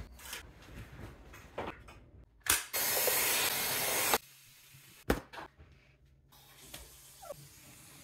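Oraimo cordless stick vacuum fitted with a crevice tool, running for about a second and a half: a steady rushing hiss that starts and stops abruptly. There is a sharp knock just before it and another about a second after.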